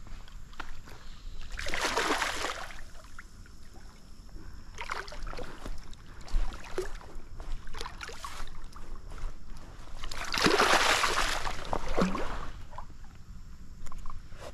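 A hooked chinook salmon thrashing in shallow water as it is landed at the stream bank. It splashes hard in two longer bursts, about two seconds in and again around ten seconds in, with smaller splashes between.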